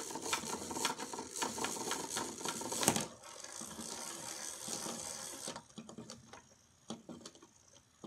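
Clockwork wind-up toy running on a wooden tabletop, a dense rapid ticking buzz of its gears. It drops off sharply after a loud click about three seconds in, runs on more quietly, and winds down after about five and a half seconds, leaving a few scattered clicks.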